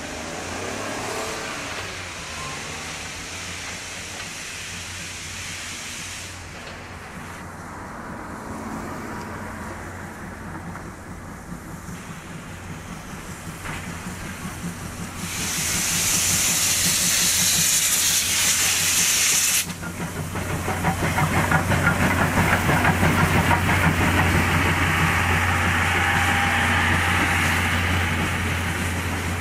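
Steam tender locomotive starting away from a station: a steady hiss of steam, then a loud burst of steam venting about halfway that cuts off suddenly, followed by rapid, rhythmic exhaust chuffs as the engine gets the train moving.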